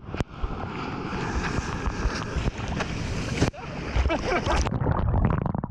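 Sea water sloshing and splashing right at a camera held at the surface, with waves breaking and wind buffeting the microphone. The sound cuts abruptly twice, about a fifth of a second in and again after about three and a half seconds.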